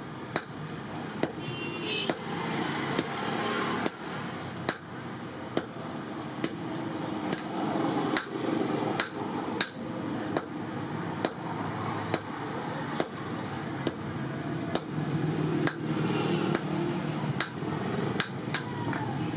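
Hammer blows on leaf-spring steel being forged into a knife, struck about once a second in an even rhythm over a steady background rush.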